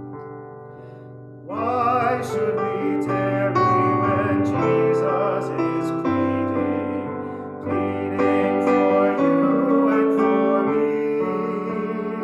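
A hymn with piano accompaniment and a voice singing with vibrato. Sung phrases start about a second and a half in and again near eight seconds, over sustained piano chords.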